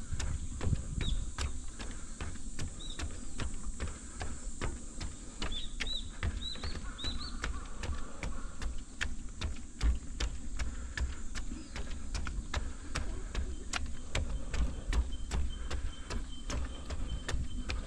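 A runner's footsteps striking a trail at a steady pace of about three strides a second, with low wind rumble on the microphone. Short high bird chirps come through in the first half.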